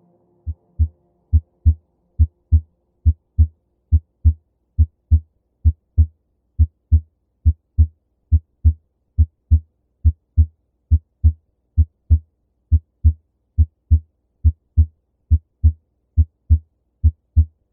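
Normal heart sounds heard through a stethoscope at the aortic listening point, second intercostal space right of the sternum: a regular lub-dub of the first and second heart tones, about 70 beats a minute. The second tone, made by the aortic and pulmonary valves snapping shut, is the normal one.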